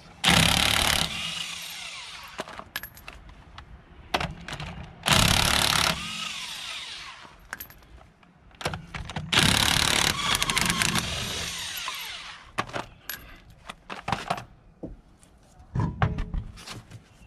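Cordless DeWalt impact wrench hammering lug nuts loose on a car's wheel, in three bursts of about a second each, each trailing off as the motor winds down. Clicks and knocks of the loosened nuts and socket come between the bursts.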